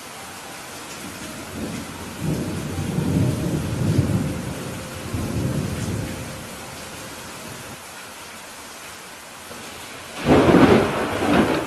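Steady rain with thunder: a long rumble rises about two seconds in and dies away by about six seconds, then a louder, sudden crack of thunder comes near the end.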